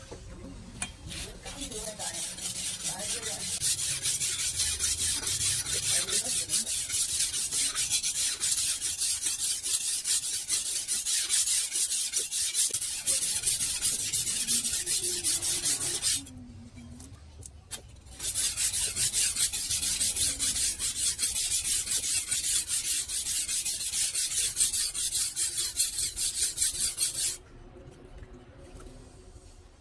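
Steel cleaver blade being sharpened on a wet whetstone: rapid back-and-forth strokes of steel scraping on stone. The strokes pause for about two seconds just past the middle and stop again near the end.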